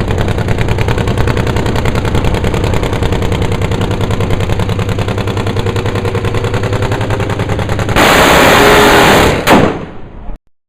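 Nitromethane-fuelled V-twin engine of a Nitro Supertwin drag bike running with a rapid, even staccato of firing pulses. About eight seconds in it jumps to a louder, harsher roar, and a sharp bang near the end, the loudest moment, marks the engine blowing apart before the sound cuts off.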